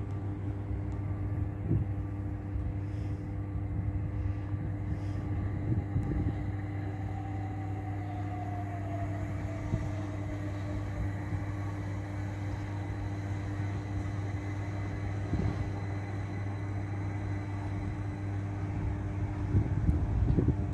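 Steady electrical buzzing hum from a trackside substation beside the overhead-wire railway. Near the end a Class 387 Electrostar electric multiple unit grows louder as it approaches the platform.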